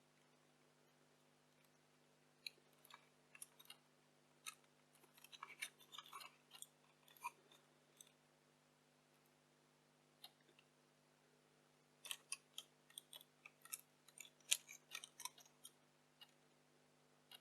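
Faint, irregular clicks and taps of small plastic and metal parts being handled while a camcorder is taken apart, coming in two short flurries.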